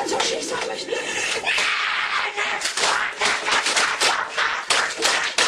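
A voice over a fast run of sharp slaps and knocks; about one and a half seconds in it turns into a harsher, noisier stretch of hits.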